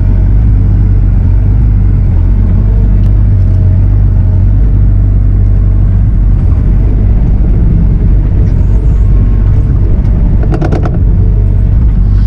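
Diesel engine of a Bobcat compact machine running steadily under load with a loud, deep rumble. About ten seconds in there is a short run of sharp knocks.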